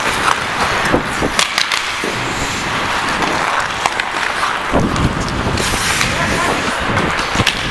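Ice hockey skate blades scraping and gliding on rink ice, close to a helmet-mounted camera, with a few sharp knocks from sticks during play.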